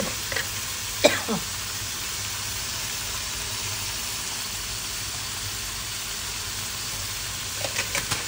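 Pork belly and seasonings frying in a metal wok over a gas flame: a steady sizzle, with a sharp knock about a second in and a few quick clicks near the end.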